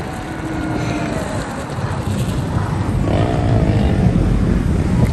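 Street traffic rumble, steady and getting louder toward the end, with a short pitched sound that falls in pitch about three seconds in.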